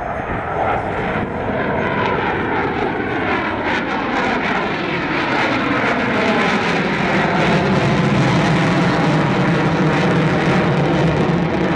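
An F-4C Phantom II's twin J79 turbojets make jet engine noise as it flies past. The noise grows louder throughout, and a whine slides steadily down in pitch as the jet goes by.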